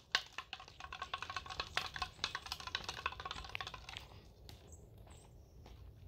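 A ball clattering across an asphalt driveway as it rolls away, a rapid run of small clicks that fades out over about four seconds.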